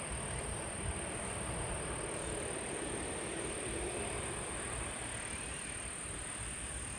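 A steady outdoor rumble of wind buffeting the microphone under a distant engine hum that swells slightly midway, with a thin, steady, high-pitched insect drone.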